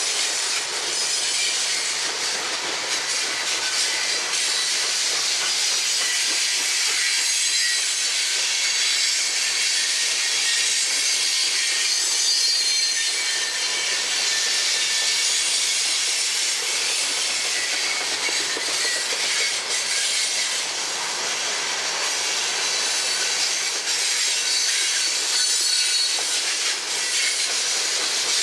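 Freight train cars of a coal train rolling past: a steady hiss of steel wheels on the rails, with no locomotive engine to be heard.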